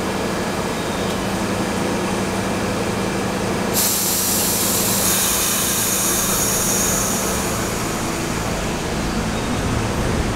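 R68 subway car standing at the platform with a steady low hum. About four seconds in, a sudden loud air hiss starts as the air brakes release, then fades. Near the end the train begins to move off with a rising rumble.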